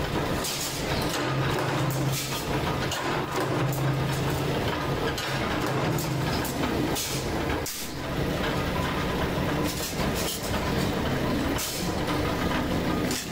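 Mechanical power press running with a steady low drone, punching shapes out of sheet steel, with irregular sharp clanks as the ram strikes and the sheet is shifted in the die.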